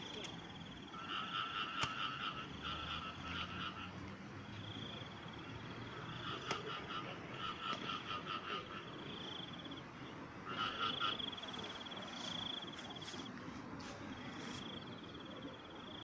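Frogs calling in several bouts of rapid pulsed notes, each about a second long, with a steady high trill coming and going behind them.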